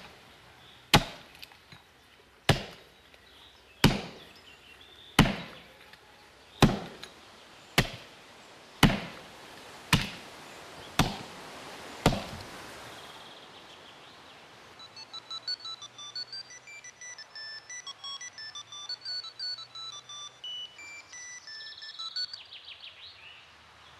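An axe chopping into a tree trunk: about ten heavy single strokes, a little over a second apart, then it stops about halfway through. Scattered high tinkling notes follow.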